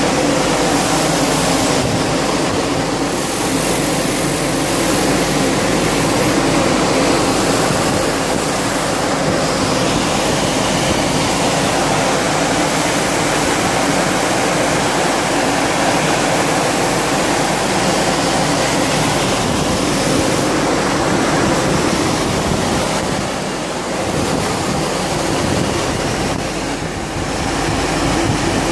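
Steady, loud running noise of a glass bottle frosting production line: a rushing hiss with a low machine hum underneath.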